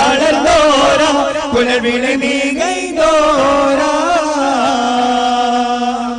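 Duff kali devotional song: a solo voice sings a winding, ornamented line over a steady low drone, then settles into one long held note for about the last second and a half. A few sharp hits from the duff frame drums come in the first half.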